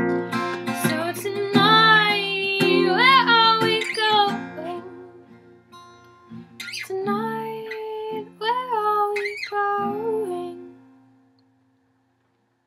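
Acoustic guitar strummed in the song's closing bars, with a woman's voice singing a melody over it; the last chord rings out and fades to silence about eleven seconds in.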